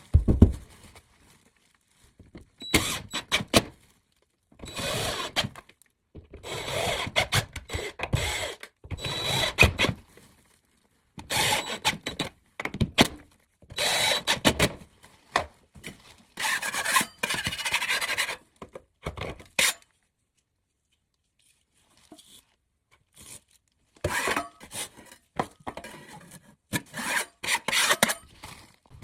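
A hand tool rasping against drywall at a joint in repeated strokes, in bursts of one to two seconds separated by short pauses.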